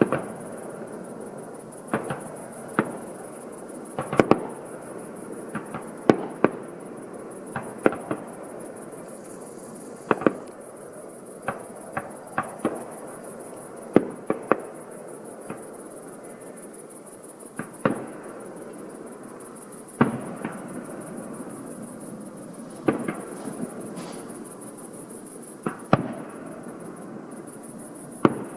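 Fireworks display: shells bursting in an irregular string of sharp bangs, one every second or two and sometimes two in quick succession, over a steady background hiss.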